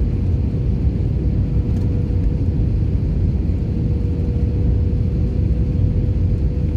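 Jet airliner cabin noise on approach to landing: a steady low rumble of the engines and the airflow over the fuselage, with a faint steady hum.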